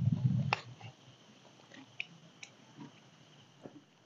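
Water poured from a plastic jerrycan over hands, heard as a short low splash at the start. It is followed by a few faint, scattered clicks of spoons on plastic plates.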